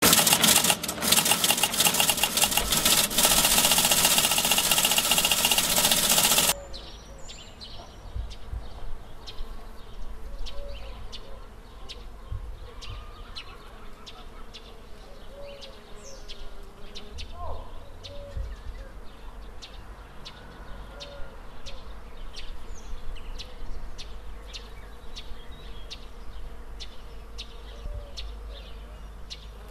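Spring garden ambience: bees buzzing, with small bird chirps and a low rumble underneath. For the first six seconds a much louder ringing sound with many held tones covers everything, then cuts off abruptly.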